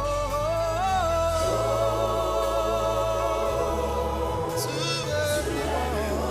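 Gospel song with a long held sung note over a bass line for the first few seconds, then the vocal melody moves on over the accompaniment.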